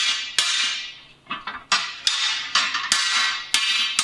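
Hand hammer striking a red-hot square steel bar on an anvil, chamfering its corners. About eight blows at an uneven pace of roughly two a second, each ringing and fading before the next.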